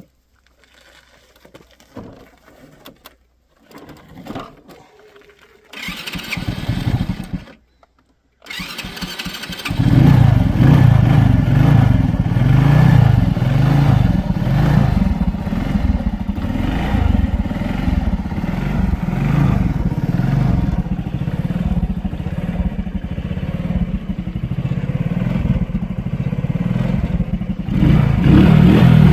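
Sanya R1000 motorcycle engine being started: a first attempt about six seconds in, then it catches and runs with a steady low pulsing rumble, revved up briefly near the end. Faint handling noises come before the start.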